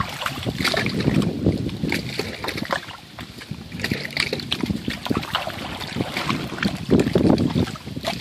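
Smallmouth bass thrashing on a rope stringer in shallow river water: irregular splashing and sloshing, loudest about a second in and again near the end.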